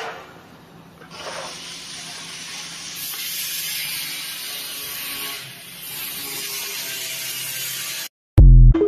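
CNC router running, with a steady hissing noise that gets brighter a few seconds in and stops suddenly. A short, very loud low-pitched sound follows near the end.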